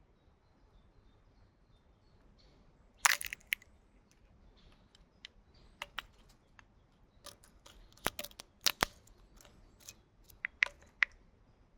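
Irregular sharp clicks and short scraping strokes of hand work with small tools, the loudest a cluster about three seconds in and another group near the end.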